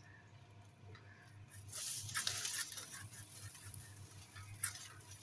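A hand sickle cutting through a young date palm frond at its fibrous base: a scratchy, rustling cut about two seconds in, followed by lighter scraping and one sharp click near the end.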